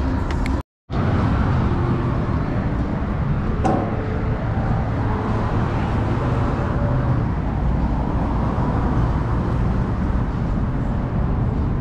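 Busy city street ambience: steady traffic noise from passing cars with a dense low rumble. The sound drops out completely for a moment a little under a second in.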